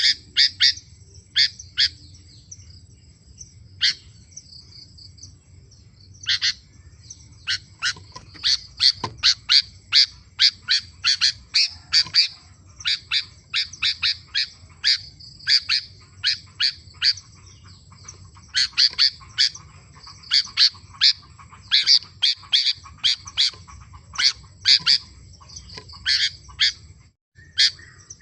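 Sooty-headed bulbul (kutilang) calling in fast runs of short, sharp chirps, about two a second, with a pause a few seconds in.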